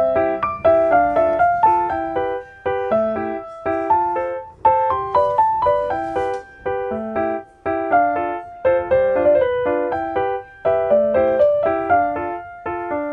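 Background music: a light keyboard melody of quick, evenly paced notes.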